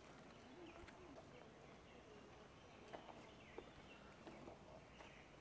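Near silence: quiet outdoor ambience with a few faint ticks and soft chirps.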